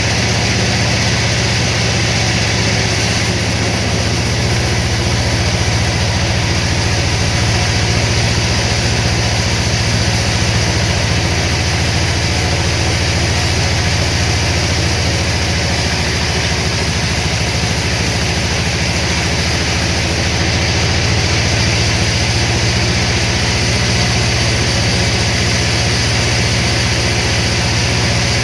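Sawmill machinery running steadily: a loud, constant low hum with hiss over it and no breaks.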